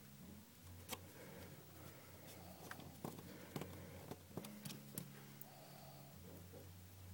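Faint, scattered little clicks and taps of a small screwdriver working the screws that hold an iPhone 2G's motherboard into its frame, about one every second, over a low steady hum.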